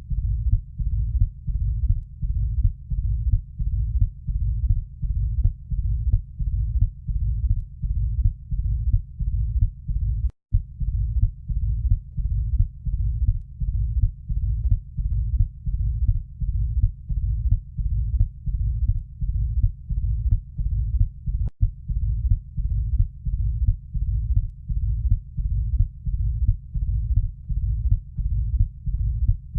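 Heart sounds of mitral stenosis heard through a stethoscope: a steady, low-pitched repeating heartbeat with a decrescendo-crescendo diastolic rumble murmur between the beats. The recording drops out briefly about ten seconds in.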